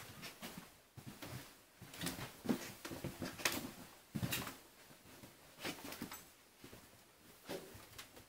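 Irregular footsteps and small knocks on a hardwood floor as people walk through rooms.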